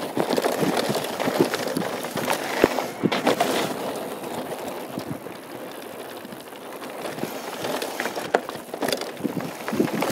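2013 Norco Truax mountain bike descending a dirt-and-gravel trail at speed: tyres rolling and crunching over loose ground, with frequent clicks and knocks from the bike. It eases off for a few seconds in the middle, then grows busier again near the end.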